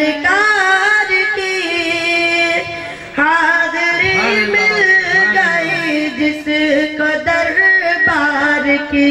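A boy singing a naat into a microphone, drawing out long, ornamented notes without clear words, with a short break about three seconds in.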